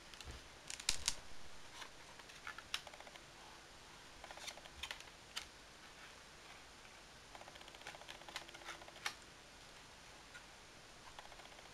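Pages of a mixed-media art journal being turned one after another: faint paper rustles and flicks with scattered sharp clicks, coming in a few short clusters.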